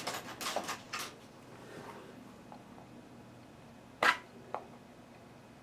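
Handling of a small sealed cardboard box as its seal is pried at: light rustles and clicks, then a sharp click about four seconds in and a softer one half a second later.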